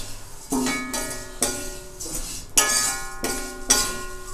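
Metal spatula stirring and scraping roasting poha around a metal kadhai, about four strokes a second apart, each stroke setting the pan ringing with clear tones. Continuous stirring keeps the flattened rice from catching and burning on the bottom.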